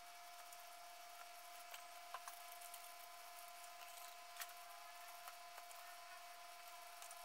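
Faint soft squishing and plastic crinkling of gloved hands rubbing chili paste into salted cabbage leaves, with a few small clicks, over a steady faint high hum.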